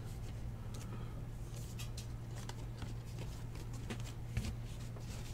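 Faint rustling and light flicks of baseball trading cards being handled and sorted by hand, over a steady low hum.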